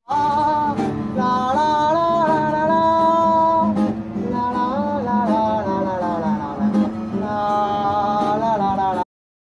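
Song with a voice singing over a strummed acoustic guitar, starting abruptly and cutting off sharply after about nine seconds.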